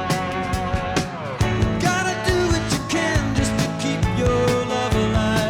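Rock song with drums, guitar and a singing voice, playing as background music; a steady beat of about two drum hits a second.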